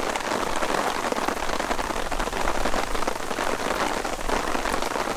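Steady rain falling on a large camping tarp overhead: a dense, even patter of drops.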